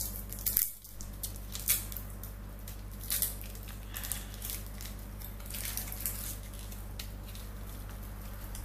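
Seasoning cubes being crumbled by hand over a pot, with their wrappers crinkling: scattered soft crackles and rustles over a steady low hum.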